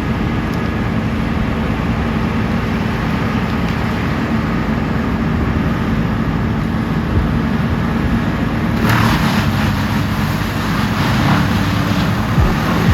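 Heavy diesel machinery running steadily at a constant pitch. A harsher, rougher noise joins about nine seconds in.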